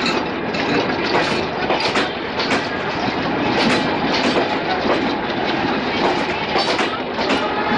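Passenger coaches of an intercity express train passing close at speed: a steady rush with the wheels' clickety-clack over the rail joints, a clack roughly every half second.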